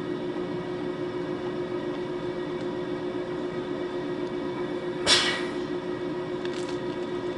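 Inside a 521-series electric multiple unit standing at a station: steady hum of its on-board electrical equipment. About five seconds in comes a sudden sharp hiss of compressed air that fades within half a second, and a fainter short hiss follows a second and a half later.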